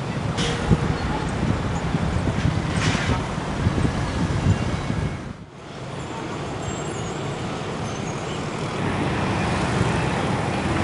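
Steady road traffic noise of motorbikes and cars passing. It dips sharply for a moment about halfway through, then carries on.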